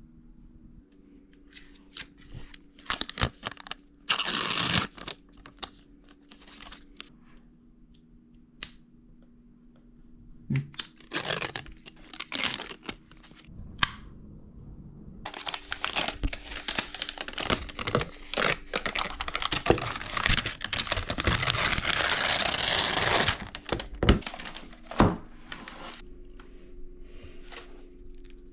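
Packaging being torn open and crinkled: scattered clicks, handling knocks and short rips, then a long stretch of continuous tearing and rustling of paper and plastic wrap from about halfway in to near the end.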